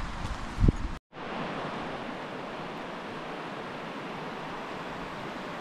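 Wind rumbling on the microphone with a thump, then after a sudden cut the steady rush of river water flowing.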